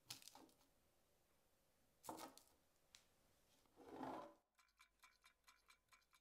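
Whole sweet potatoes set down one by one on a baking tray: a light knock at the start, another about two seconds in, and a duller, louder thump about four seconds in. Then a fast, even mechanical ticking, about six ticks a second, runs through the last couple of seconds.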